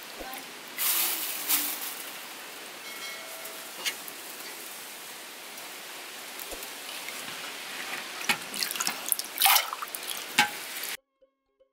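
Hands washing fresh peas in a steel basin of water: swishing, scooping and dripping, with louder splashes near the end as the hands rub through the peas. The water sound cuts off suddenly just before the end.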